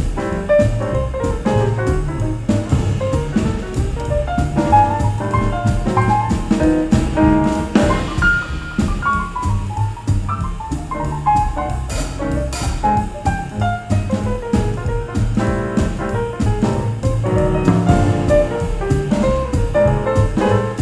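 Jazz: a piano playing running melodic lines over double bass and drum kit.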